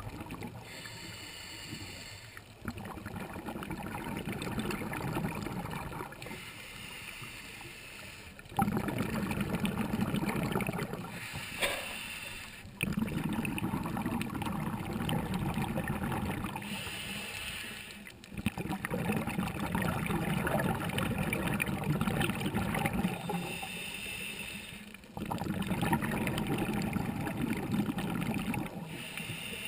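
A scuba diver breathing through a regulator underwater, heard close to the camera. Each breath is a short hiss on the inhale, then several seconds of bubbling exhaust; about five breaths are heard in slow succession.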